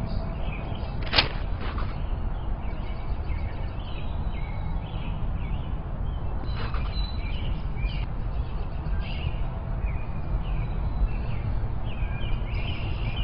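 Sparrow chirping in short, scattered calls over a steady low background rumble, with one sharp click about a second in.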